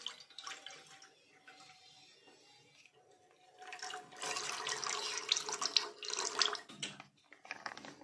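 Refined cooking oil poured in a thin stream into a non-stick frying pan, trickling and splashing into the oil already pooled there. The pour grows louder about halfway through and stops shortly before the end.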